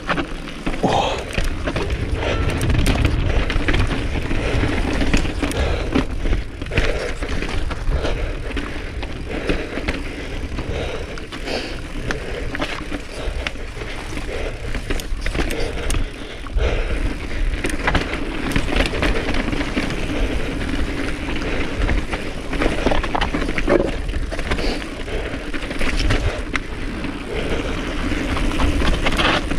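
Mountain bike rolling down bare rock slabs: tyres rumbling over the rock, with frequent knocks and rattles from the bike over bumps and ledges.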